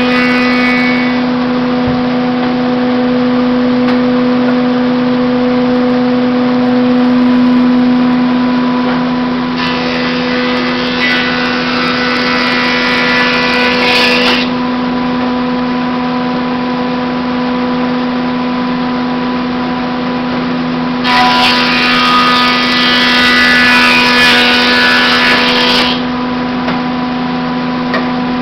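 Powermatic Model 221 20-inch planer running with a steady hum, with two louder, harsher stretches of about five seconds each, starting about ten and twenty-one seconds in, as boards pass through the cutterhead.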